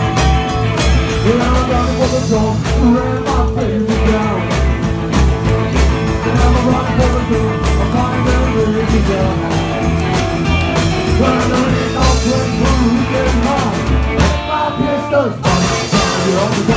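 Live rock and roll band playing: a steady drum beat, electric guitar and a man singing into a microphone. The band breaks off for about a second near the end, then comes back in.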